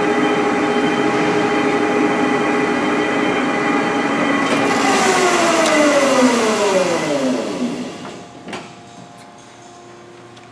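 Tuda Jumbo 1250/4000 engine lathe running with a steady gear whine from its headstock. About halfway through, the spindle is stopped and the whine slides down in pitch over about three seconds as it coasts to a standstill. A fainter steady hum and a few light clicks remain.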